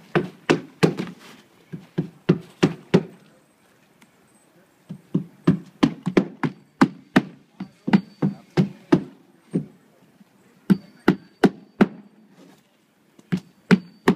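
Hand hammer driving roofing nails through asphalt shingles into a plywood deck: quick runs of sharp knocks, about three a second, broken by short pauses as the roofer sets each shingle.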